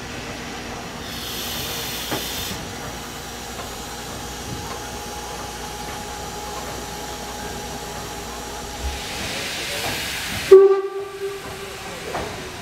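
Steam locomotive 50 3610, a German class 50 2-10-0, hissing steam at a standstill. Near the end there is one short, loud blast of a steam whistle, lasting about a second.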